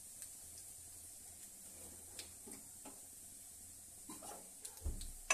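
Faint sizzle of a spice tempering in hot mustard oil in an iron kadai, with a few light clicks and a dull knock near the end.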